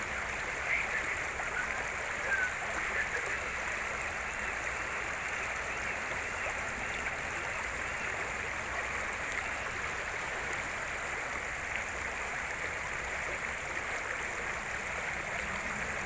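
River current running, a steady rush of water.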